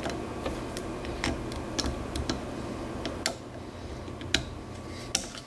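Snap-ring pliers and a steel axle retaining clip giving a handful of sharp, irregular metal clicks as the clip is spread and worked down over the axle shaft to seat in its groove above the new rear wheel bearing.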